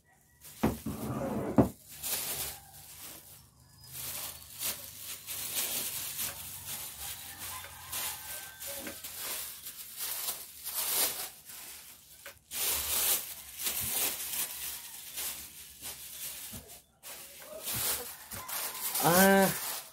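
Thin plastic bag rustling and crinkling as it is handled and folded, in irregular crackly bursts. A dog barks near the end.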